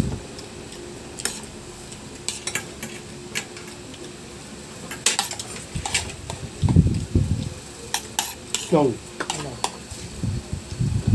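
Forks and spoons clinking and scraping against ceramic plates as two people eat, in scattered irregular taps.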